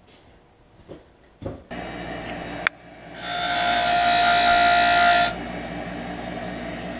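A handheld electric power tool whirs at high speed for about two seconds and stops abruptly, over a steady machine hum. Two knocks come before it.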